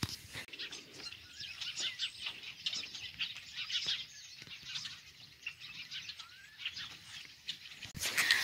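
Hereford cattle eating hay at a feeder: a steady run of small crunching and rustling sounds, with small birds chirping.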